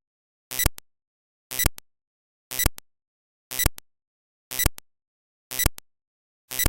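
A short electronic percussion hit repeating steadily about once a second, with silence between hits: a rhythmic intro beat.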